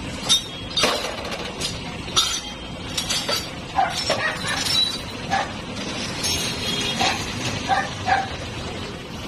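Irregular metallic clinks and knocks as a wrench is worked on the pinion housing of a Honda City rack-and-pinion steering assembly resting on a sheet-metal bench. A dog barks several times in the background.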